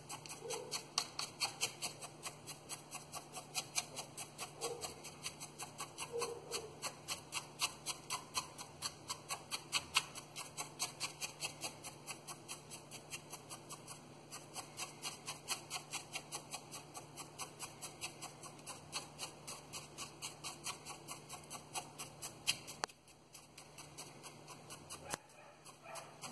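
A chopstick jabbed quickly and repeatedly into granular bonsai substrate, making a run of light clicks and crunches about four a second, settling the substrate in among the roots of a potted plant.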